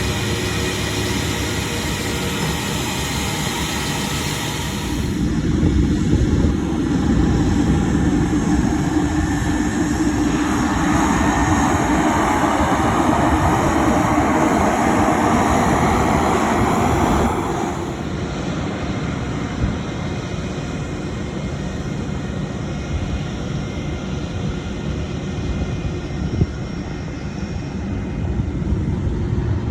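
Jet airliner engine noise, a steady roar that grows louder about five seconds in and steps down abruptly about eighteen seconds in.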